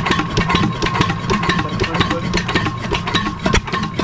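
12 hp single-cylinder stationary diesel engine of an irrigation pump set running, with a fast, even knocking beat of several strokes a second and a steady high whine alongside.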